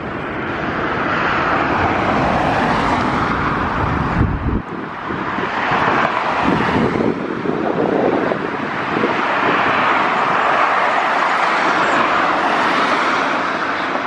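Jet airliner engines at take-off power, a loud steady noise that swells and eases as the aircraft rolls and climbs away. Wind buffets the microphone with a heavy rumble for the first few seconds, stopping abruptly.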